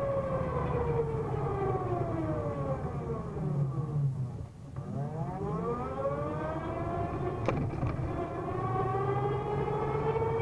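Vectrix VX-1 electric maxi-scooter's straight-cut reduction gear whining, its pitch falling steadily as the scooter slows nearly to a stop about halfway through, then rising again as it pulls away. A steady low hum and road noise run underneath, with one short click about three-quarters of the way through.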